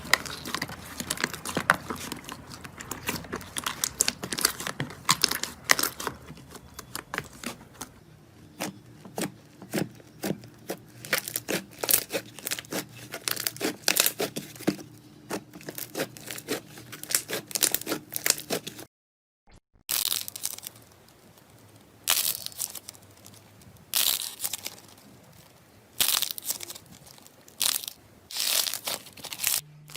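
Slime being squeezed, stretched and poked by hand: dense runs of sticky clicks, pops and crackles, changing character across several short clips, with a brief silent break a little past the middle.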